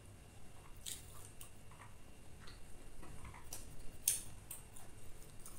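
Irregular light clicks and crackles of crispy fried chicken coating being pulled apart by hand, with the sharpest click about four seconds in.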